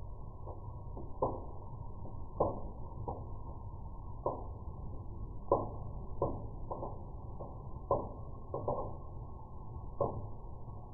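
Dull, slowed-down crackling pops at irregular intervals, roughly one a second, over a steady low hiss, with nothing above about 1 kHz.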